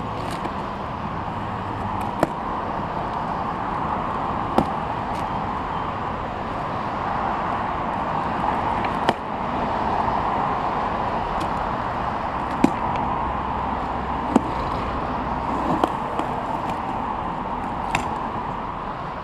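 Steady hiss of passing road traffic, with a few short sharp clicks and knocks scattered through it.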